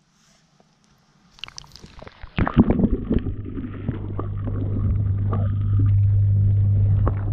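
Microphone plunging into a small garden pond: splashing and gurgling water from about a second in, loudest around two and a half seconds. Then a steady low underwater hum from the pond's submerged filter pump, growing slightly louder.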